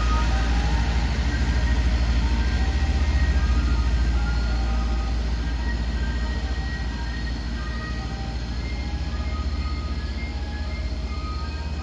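Soft-serve ice cream truck driving off: a loud low engine drone with its chime jingle playing over it as short high notes, the whole slowly fading as the truck moves away.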